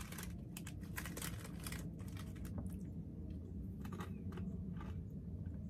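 A snack pouch of crunchy roasted chickpeas crinkling in the hands, mixed with the crunch of the dry chickpeas being eaten. Irregular crackly clicks, none much louder than the rest.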